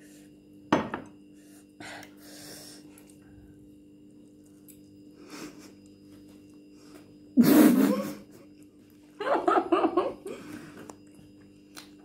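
Sisters eating very hot noodles: a sharp knock on the table about a second in, then a loud breathy burst like a cough, the loudest sound, and soon after a short run of vocal sounds from one of them, over a steady low room hum.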